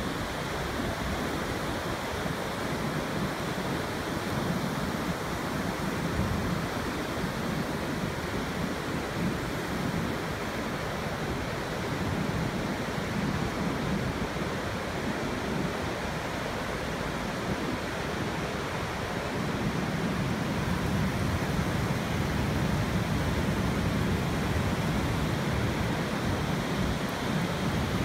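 Steady rush of ocean surf breaking on a beach, mixed with wind on the microphone; it grows a little louder about two-thirds of the way through.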